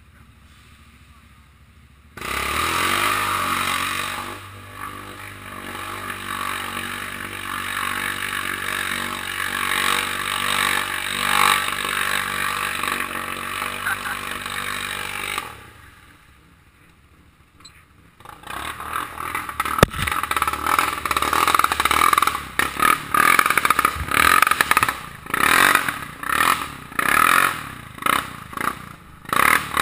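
Off-road vehicle engine running through mud, coming in about two seconds in and holding a steady note until it drops away after about fifteen seconds. After a short lull, a rapid, choppy run of knocks and clatter.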